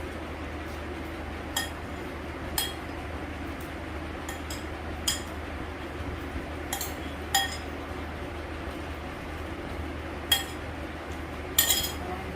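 A metal spoon clinking against a dish now and then, about seven times, a double clink near the end, as taco meat is spooned onto the nachos. A steady low hum runs underneath.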